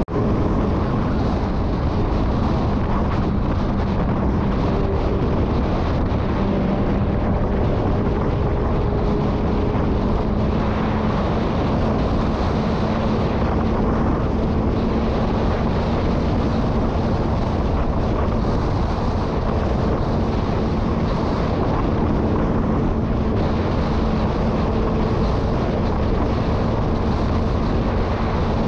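Motorcycle engine running at a steady cruise with heavy wind rush on the microphone; the engine hum holds an even pitch under the wind.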